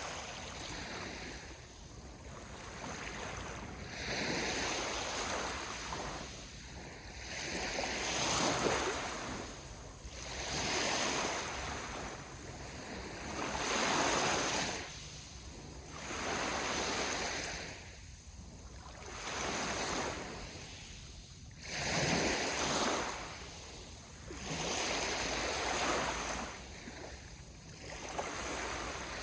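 Ocean waves breaking and washing up the shore, swelling and falling away in surges every two to four seconds.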